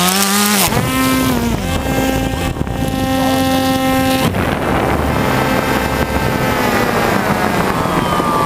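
Propeller motors of a small FPV drone whining at high speed while it is caught and held by hand. The whine drops in pitch about half a second in, holds steady for a few seconds, turns rougher, and starts to fall near the end.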